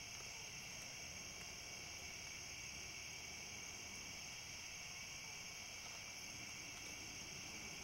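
Steady night-time chorus of crickets and other insects, a continuous high-pitched shrill that never lets up.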